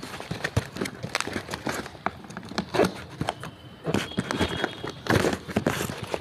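A delivery parcel being opened by hand: packaging rustling and crinkling, with irregular clicks and taps.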